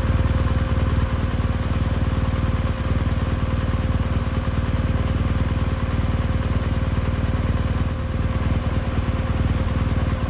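Motorcycle engine running at steady, even revs, a rapid low firing pulse, with a faint steady hum alongside.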